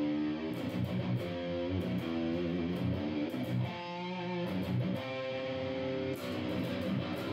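Instrumental background music led by guitar, picked notes and chords that change about once a second.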